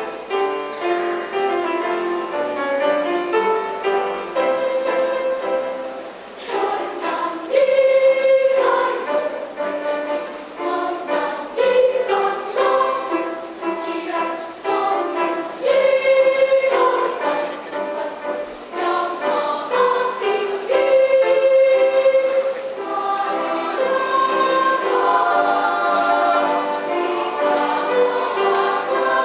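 Children's choir singing in several parts, in phrases that swell and fall.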